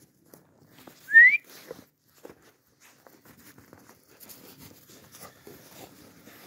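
A single short whistle, rising in pitch, about a second in: a person whistling to the dogs. Soft crunching of steps in the snow runs around it.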